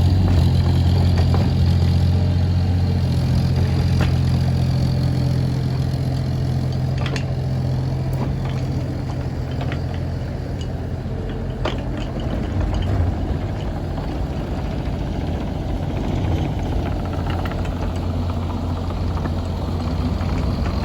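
Bobcat 325 compact excavator's diesel engine running steadily, its low hum easing off somewhat about halfway through, with a few sharp clanks.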